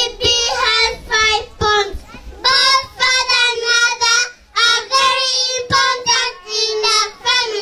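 Young children singing into handheld microphones, a melody in short phrases with some notes held for about a second.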